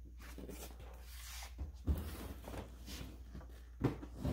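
Large cardboard box being handled and shifted, its surface rubbing and scuffing, with a short knock about two seconds in and another near the end as it bumps against a wooden dresser.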